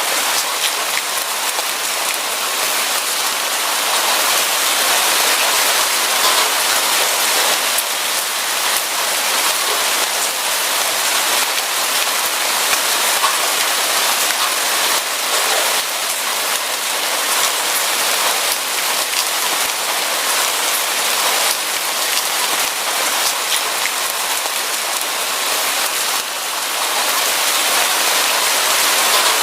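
Steady rain falling: a dense, even hiss scattered with many individual drop ticks.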